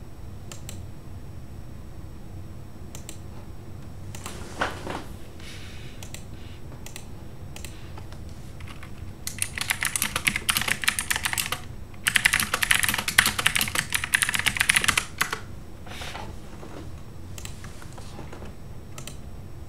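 Typing on a computer keyboard: a few scattered key presses, then two fast runs of typing about nine and twelve seconds in, each lasting a few seconds.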